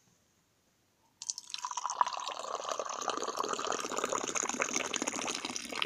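Tea being poured from a metal teapot into a glass: a steady stream of liquid that starts about a second in and stops near the end.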